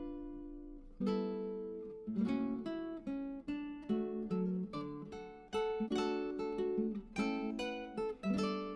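Background music of plucked acoustic guitar, a gentle picked melody of notes that ring and die away, with a short pause near the start.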